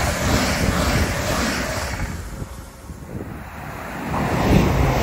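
Two coupled Class 387 electric multiple units running through the station at speed, a steady rush of wheel and air noise that fades away about two seconds in. Near the end a Class 345 electric train approaches, its noise growing louder.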